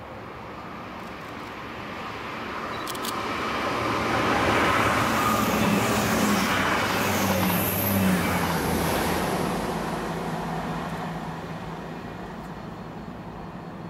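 Class 159 diesel multiple unit passing at speed: its diesel engines' drone and the rumble of wheels on rail swell to a peak about five to eight seconds in, then fade as it runs away.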